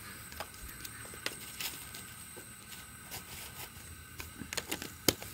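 Black tea coming to the boil in a stainless-steel camping mug on a butane camping stove: faint, irregular bubbling and popping over a low steady hiss, getting busier near the end.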